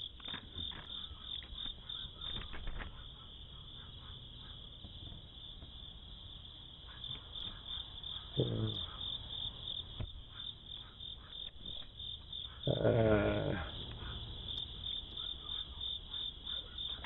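Insects chirping in a steady, rapid pulse, heard through a doorbell camera's narrow-band microphone. A short pitched sound falls in pitch about eight and a half seconds in, and a louder pitched sound comes around thirteen seconds in.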